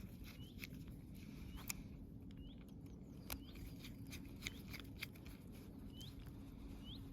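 Faint small clicks and taps of a plastic tool housing and screws being handled and screwed together by hand, over a low steady hum, with a few short rising chirps now and then.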